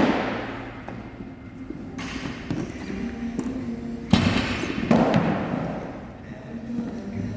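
Heavy thuds of loaded barbells dropped onto the gym floor, two about a second apart near the middle, each ringing out briefly in the hall, over background music.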